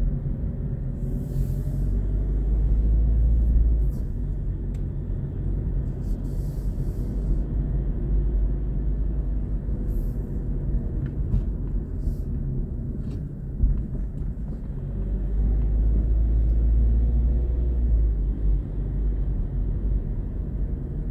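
Car driving slowly: a steady low rumble of engine and tyres that swells louder twice, about a second in and again about fifteen seconds in.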